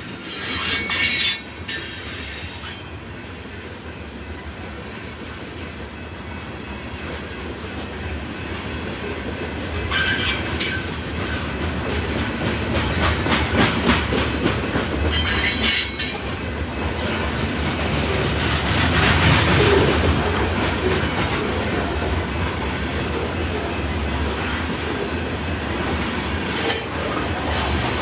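Freight cars of a loaded grain train rolling past, a steady rumble of wheels on rail with clicking over the joints. Several short bursts of high-pitched wheel squeal rise out of it, near the start, around a third of the way in, and near the end.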